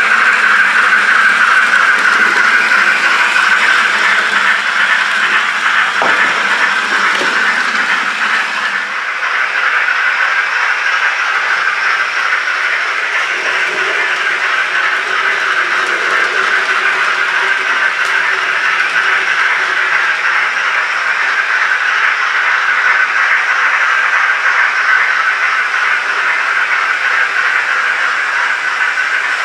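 Steam locomotive sound from a sound-fitted N gauge GWR Castle model's DCC decoder and small speaker: a steady hiss of steam with no chuffing rhythm. Some lower sound drops away about nine seconds in.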